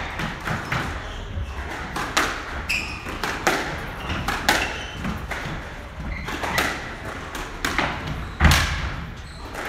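Squash rally: the ball cracked off rackets and thudding against the court walls in a quick, irregular string of sharp impacts. One heavy thud about eight and a half seconds in is the loudest.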